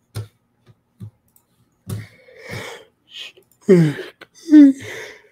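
A few sharp clicks, then, from about three and a half seconds in, a man's long, loud yawn: a voiced sound that slides down in pitch, breaks, then holds on a steadier tone with breath around it.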